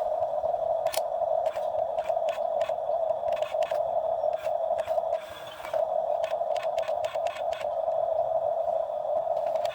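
Excavator at work: a steady whine under many sharp clicks and knocks, the whine dipping briefly about halfway through.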